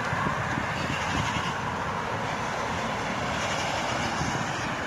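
Steady rushing wind and road noise with a low rumble, heard while moving along a road.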